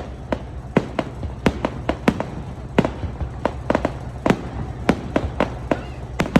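Fireworks bursting overhead: a rapid, irregular series of sharp bangs and crackling pops, about three a second, over a steady low rumble.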